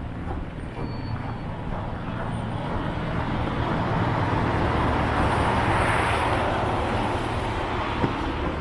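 A vehicle passing on the wet city street, its tyre and engine noise swelling to a peak just past halfway and then fading, over a steady low traffic hum. A single sharp knock near the end.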